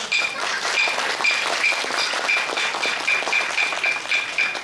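Hyoshigi wooden clappers struck in a quickening series of sharp, ringing clacks, from about two and a half to about five a second: the kizami that signals the curtain opening on a puppet play.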